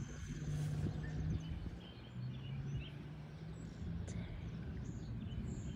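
Outdoor background sound: a low steady rumble with scattered faint bird chirps.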